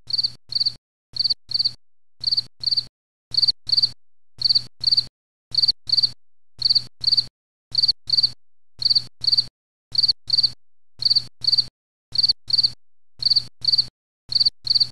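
Insect chirping: short, high chirps in evenly spaced pairs, about one pair a second.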